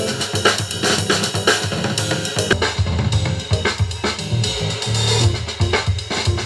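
Instrumental music with a steady drum-kit beat (kick, snare, cymbals) and heavy bass, played back through a JBL portable Bluetooth speaker.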